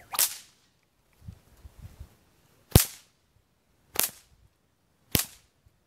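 A newly made micro whip being test-cracked: four sharp cracks, the first about a second in and the rest about a second apart near the end, the second crack the loudest.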